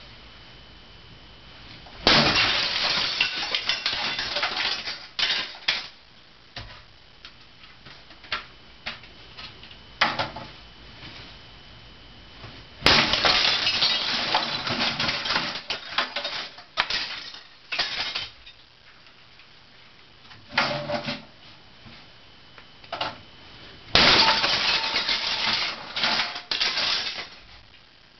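A hammer smashing brittle plastic discs and cases, which crunch and shatter in three loud flurries of blows about ten seconds apart, with scattered clicks and clinks of broken pieces in between.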